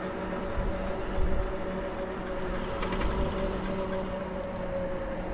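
Lectric XP Trike ridden along a paved road: a steady whine over tyre and wind noise, with a few faint clicks about halfway through.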